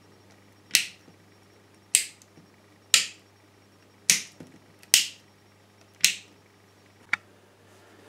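White plastic one-gang light switches being flipped by hand, turning the lamp on and off. Seven sharp clicks about a second apart; the last one is fainter.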